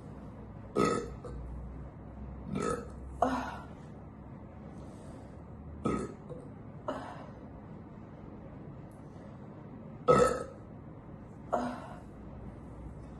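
A woman belching repeatedly, about seven short burps with pauses between them, the loudest about ten seconds in. She is belching from a very bloated stomach after eating a great deal.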